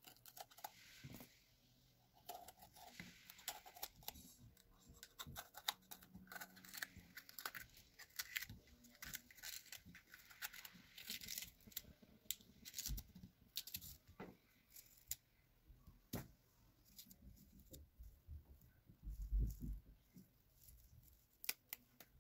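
Small kitchen knife slicing through a green chili pepper and a garlic clove held in the hand, a quick run of faint, crisp irregular cutting clicks as pieces drop into a clay bowl. A dull low thump near the end.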